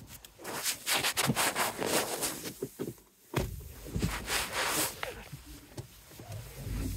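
Handling noise: jacket fabric rubbing and scraping against the phone's microphone as someone climbs into a car seat, with a dull thump about three and a half seconds in.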